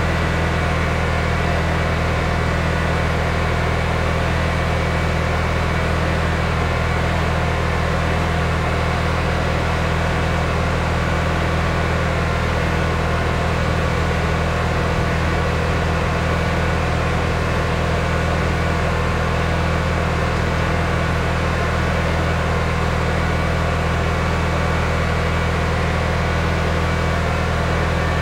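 Gas engine of a pressure washer running steadily at constant speed, a continuous drone with no change in pitch.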